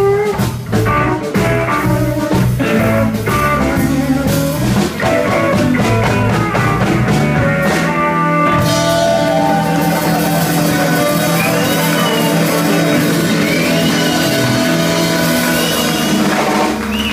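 Live blues-rock band of two electric guitars, electric bass and drum kit playing rhythmically. About halfway through it goes into a long held chord with cymbal wash and guitar bends over it, the drawn-out close of the song.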